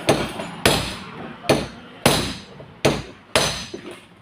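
Hammer blows on the steel of a scrapped truck, six strikes about two-thirds of a second apart, each with a short metallic ring.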